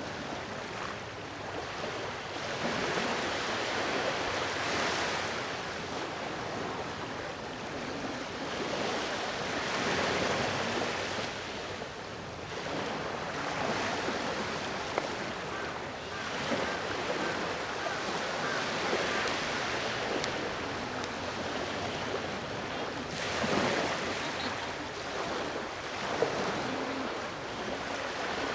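Sea waves breaking and washing onto the shore, the surf swelling and falling away every few seconds.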